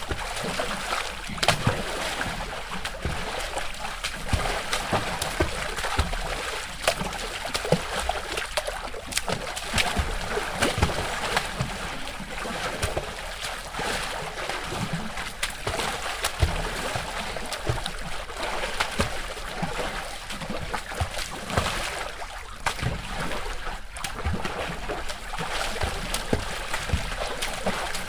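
Water splashing and sloshing, with many small irregular splashes over a steady wash.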